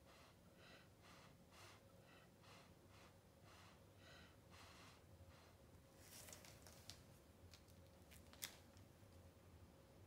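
Faint, repeated short puffs of air blown through a drinking straw onto wet pour paint, about two a second, each with a hollow tube-like colour. After about six seconds they give way to light handling clicks and rustles, with one sharper click near the end.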